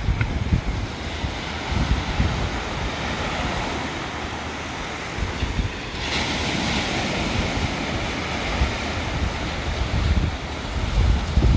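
Ocean surf washing in, with a louder hissing wash of a wave starting about halfway through. Wind buffets the microphone in low rumbling gusts.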